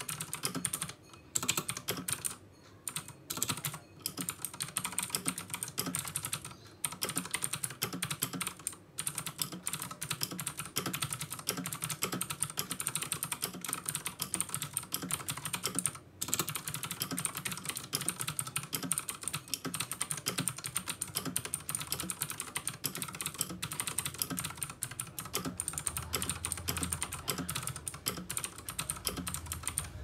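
Fast, continuous typing on a Vortexseries VX7 Pro mechanical keyboard fitted with Outemu Blue clicky switches: a dense run of key clicks, with a few brief pauses near the start and one about halfway.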